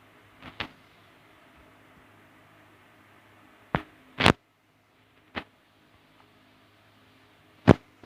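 A few sharp knocks or clicks, about five spread out with gaps between them, the loudest a little past four seconds in, over a faint steady hum.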